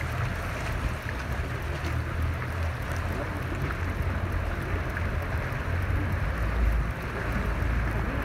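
A motorboat under way: its engine runs as a steady low rumble, with water rushing along the hull.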